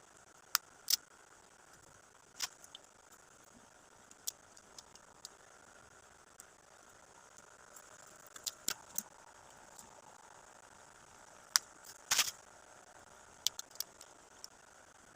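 Scattered sharp clicks and light rattles of gift items and their packaging being handled, with a brief cluster of louder clicks about twelve seconds in.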